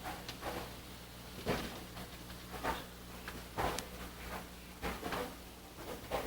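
A series of short knocks and clunks, roughly one a second, like things being handled or doors and drawers moved, over a steady electrical hum.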